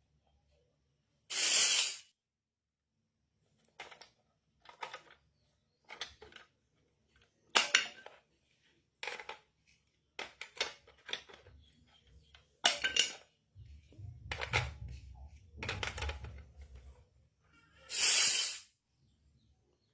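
Small toy kitchen pieces being handled and unpacked: scattered clicks and taps, with two loud noisy bursts of about half a second, one about a second in and one near the end.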